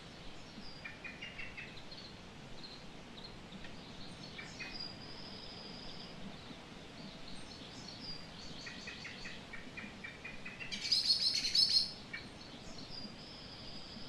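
Wild songbirds calling over a steady outdoor hiss: scattered high chirps and a thin held whistle, then a run of short repeated notes that leads into a loud burst of rapid chirping about eleven seconds in, lasting about a second.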